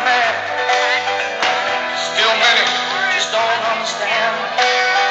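Music with strummed guitar and a singing voice.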